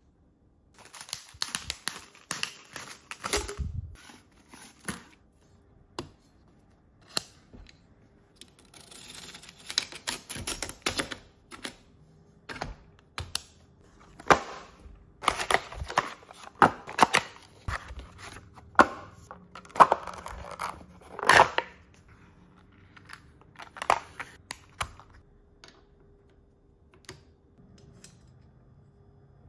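Hands handling small rifle parts and packaging on a bench mat: an irregular run of clicks and taps with bursts of rustling, busiest in the middle and thinning out near the end.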